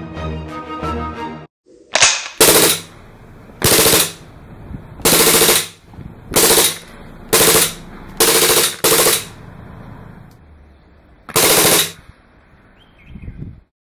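Background music cuts off, then eight short bursts of fully automatic gunfire from a folding pocket machine pistol, spread over about ten seconds.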